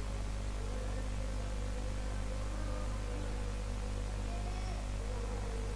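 Steady low electrical hum with an even hiss underneath: the recording's background noise while nothing else is happening.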